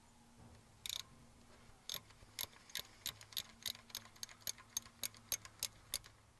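Small ratcheting spanner clicking in a steady rhythm, about three clicks a second, as it is swung back and forth to undo a 7–8 mm screw on a camshaft position sensor. One sharp metal clack about a second in.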